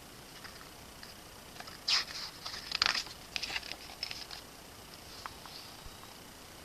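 Paper handling as the photo book of a K-pop album is paged through: a cluster of rustles and small clicks about two to three seconds in, then a few lighter touches.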